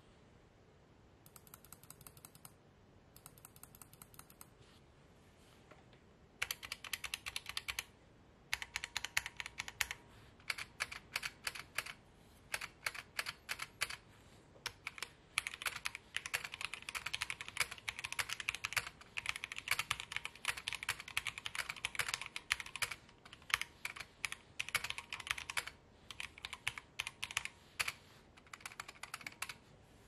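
Typing on a bone-stock Drop Alt 65% mechanical keyboard: runs of rapid keystroke clacks with short pauses, fainter for the first few seconds and louder from about six seconds in. The stock keys have a rattle to them.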